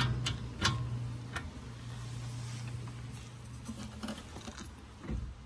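Ratchet head of a long torque wrench clicking a few times as the wrench is swung back and repositioned on a front suspension ball joint nut, with a low steady hum underneath for most of it and a low thump near the end.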